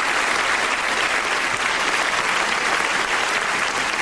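A large audience applauding steadily: dense, even clapping.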